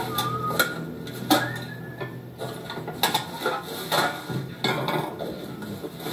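Irregular clinks and knocks of hard objects being handled, a few sharp ones standing out, over a low steady hum, heard through a television's speaker.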